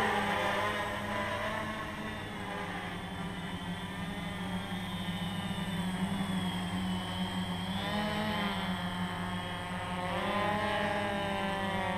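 Hexacopter's six NTM 2826 1000kv brushless motors spinning 9x4.7 nylon-carbon propellers in flight: a steady buzzing hum whose pitch shifts up and down as the motor speeds change, most noticeably about eight and ten seconds in.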